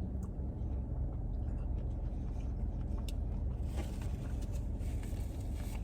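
Steady low rumble inside a car's cabin, the engine idling, with a few faint clicks and a rustle in the second half.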